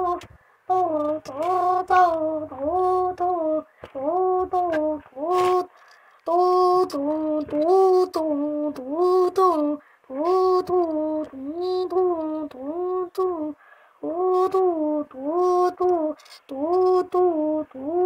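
A voice humming the same short rising-and-falling note over and over, about one and a half times a second, in runs broken by brief pauses.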